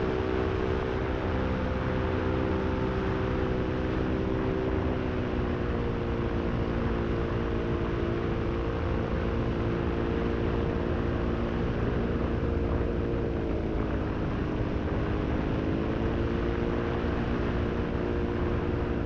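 Moster 185 single-cylinder two-stroke paramotor engine running in flight with wind rushing over the microphone, its pitch shifting a few times and dipping briefly about two-thirds through before coming back up. It is turning a propeller whose repaired blade has failed and come apart.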